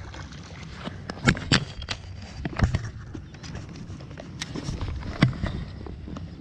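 Footsteps on wet sand, with several sharp knocks and rustling of clothing close to the microphone.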